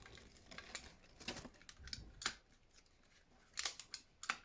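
Irregular light clicks and rustles of an electric hot water bottle and its packaging being handled, with a few sharper clicks spread through and a small cluster near the end.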